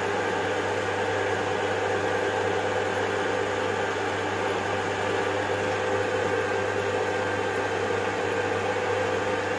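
Electric knife-grinding machine with a lac-bonded grinding wheel running steadily: an even motor hum under a whirring hiss, with no grinding contact heard.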